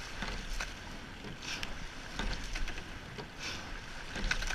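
Eight-oared racing shell under way at race pace: oars clunking in the oarlocks and blades catching the water in a steady rhythm, about one stroke every two seconds, over the rush of water along the hull.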